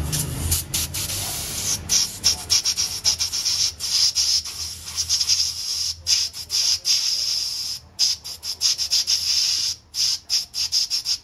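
Compressed-air blow gun hissing in many rapid short blasts at a car air-conditioning high-side service fitting, then cutting off abruptly at the end.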